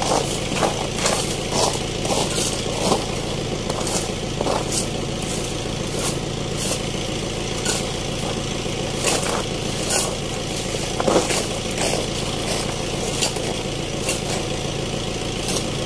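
Loose oil palm fruitlets being scraped up from the ground with plastic scoops and dropped into woven baskets: irregular scrapes and clatters over a steady low engine hum.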